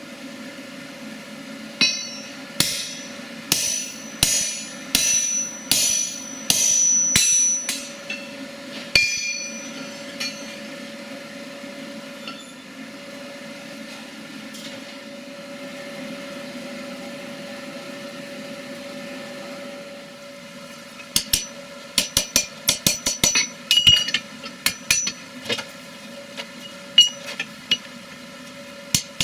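Blacksmith's hammer striking metal on an anvil, with a high ring on each blow. About a dozen blows come over the first ten seconds, then there is a pause with only a steady hum underneath. Near the end comes a run of quicker, lighter taps.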